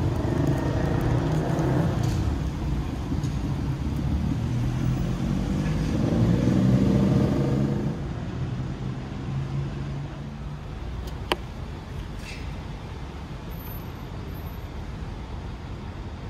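A motor vehicle's engine running close by, loudest about six to seven seconds in, then dropping away about eight seconds in to a quieter traffic hum. A single sharp click about eleven seconds in.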